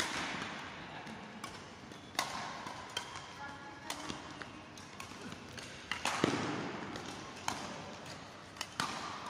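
Badminton rackets striking a shuttlecock in a doubles rally, sharp cracks every second or two, the loudest a little past halfway, ringing in a large sports hall, with fainter hits from neighbouring courts.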